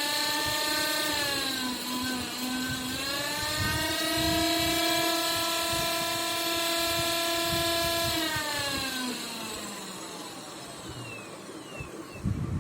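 Rewound brushed DC motor, converted to run on 24 volts, running with a whine whose pitch dips and recovers about two seconds in, holds steady, then falls as the motor spins down about eight seconds in and fades out. A few knocks follow near the end.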